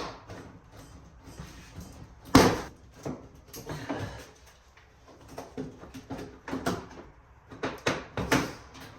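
Plastic knocks, clicks and rattles from a car's front bumper cover and its clips being worked loose. The loudest knock comes about two and a half seconds in, with smaller ones scattered after it and a quick cluster near the end.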